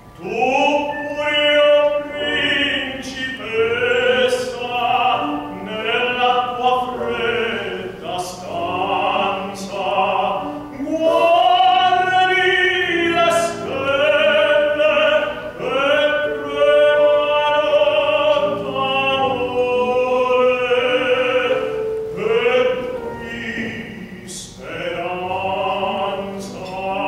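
Operatic tenor singing a classical piece with wide vibrato and long held notes, with piano accompaniment.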